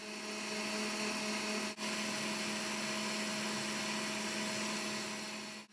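Electric stand mixer running at speed, its whisk beating stiff egg whites in a steel bowl: a steady motor whir with a low hum, briefly dipping a little under two seconds in.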